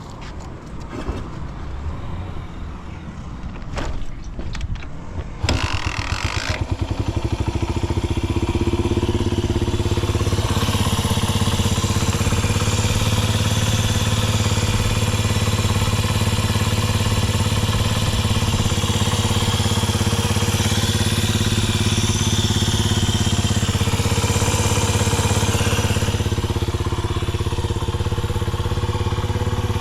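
Honda Ape 50's single-cylinder four-stroke engine breathing through a Racing Service ZERO aftermarket muffler: a few knocks, then the engine catches about five and a half seconds in and settles into a steady idle. It runs evenly with no abnormal noise.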